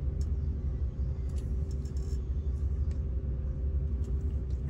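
Steady low rumble of a vehicle engine idling, heard from inside the cab, with a faint steady hum above it and a few light ticks.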